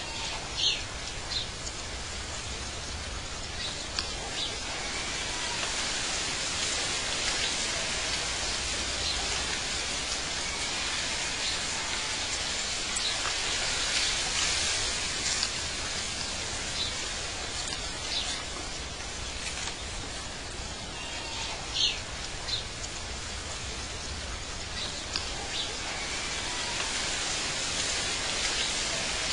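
Steady hissing outdoor ambience with a few short, high bird chirps, two near the start and a couple more about three-quarters of the way through.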